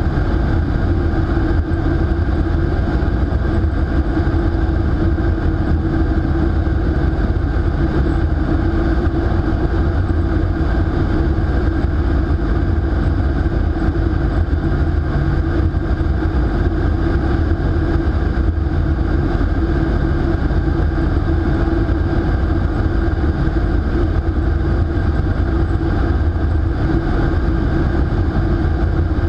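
Steady, loud rush of air through a vertical wind tunnel's flight chamber, with a constant low hum under it.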